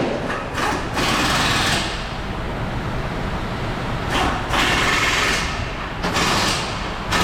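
Several short bursts of a small power tool whirring, each lasting up to about a second, with pauses between them.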